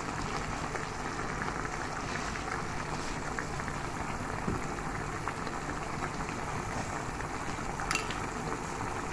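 Chicken pieces cooking in their own watery juices in an aluminium pan, a steady bubbling and sizzling.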